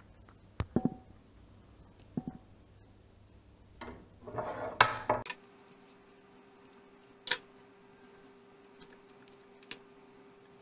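Handling noise from a pheasant being skinned by hand on a kitchen cutting board: scattered knocks and clinks, with a noisier stretch lasting about a second around the middle. A faint steady hum starts about halfway through, with a few more light ticks.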